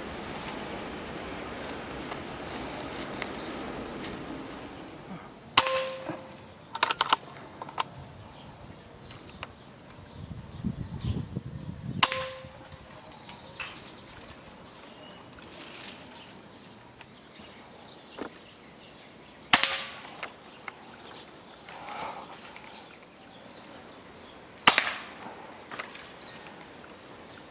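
Hatsan PCP air rifle shots: four sharp cracks several seconds apart, three of them followed by a brief ringing tone. A couple of fainter clicks come soon after the first shot.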